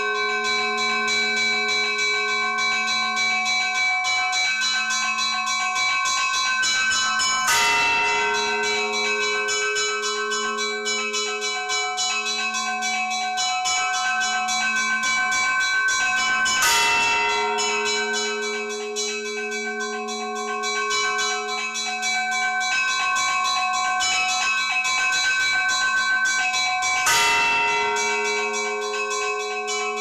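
Church bells ringing: a large bell struck three times, roughly every nine to ten seconds, each stroke ringing on, over a rapid, continuous peal of smaller bells.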